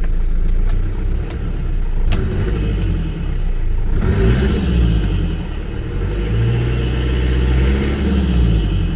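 Mitsubishi Triton's 2.8 litre four-cylinder turbo-diesel running hot at operating temperature, idling with its revs rising and falling twice, about four seconds in and again near the end.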